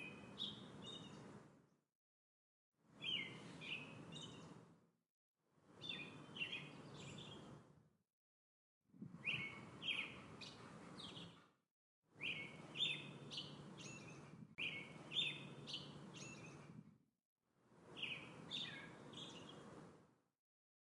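A songbird singing short chirping phrases, one about every three seconds, each over a faint background hiss and cut off by complete silence between phrases.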